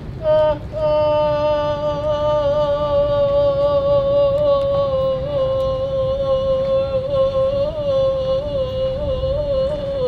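A high human voice wailing in mourning: a couple of short rising-and-falling cries, then one long note held for about nine seconds that sinks slightly in pitch and wavers near the end, over low background noise.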